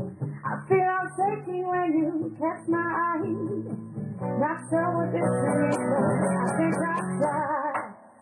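A woman singing a song live into a microphone over a guitar accompaniment, with a brief break in the sound just before the end.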